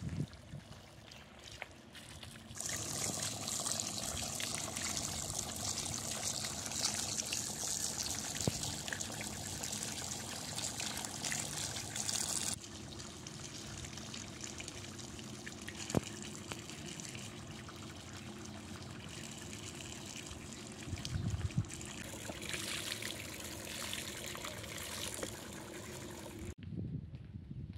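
Running water, a steady stream pouring and splashing. It changes abruptly about halfway through and drops away near the end.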